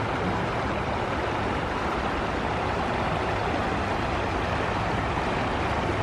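A small river flowing, a steady rushing of water.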